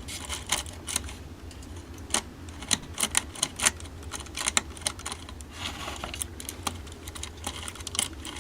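Irregular small clicks and taps from hands handling the exposed works of a cuckoo clock, its parts knocking lightly, over a steady low hum.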